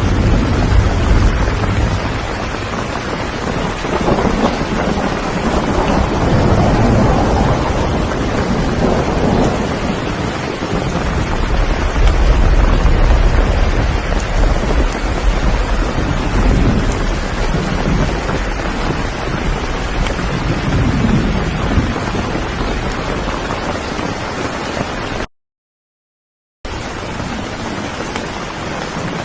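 Steady heavy rain with a deep low rumble under it. It cuts out completely for about a second near the end, then resumes.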